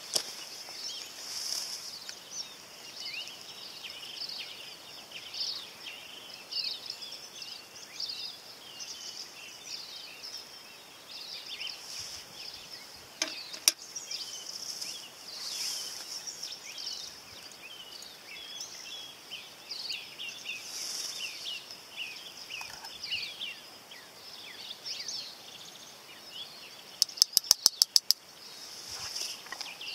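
Birds chirping over a light steady hiss. Near the end comes a quick run of about eight sharp clicks.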